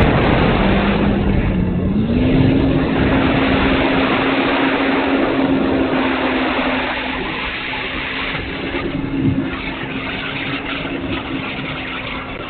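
Electric motor and propeller of an 800mm foam RC Hawker Tempest, heard from the plane's onboard camera under a heavy rush of wind over the microphone. The motor's hum rises in pitch as the throttle comes up in the first two seconds, then holds steady.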